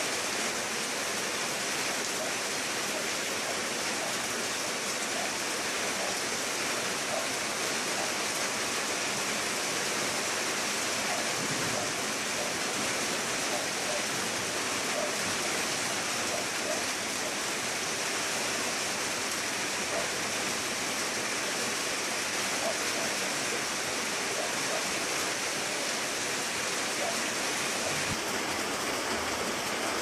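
Steady rain falling on garden foliage, an even hiss with no break.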